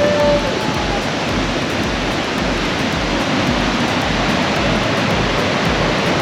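Steady rushing roar of the Potomac River pouring over the rocks at Great Falls.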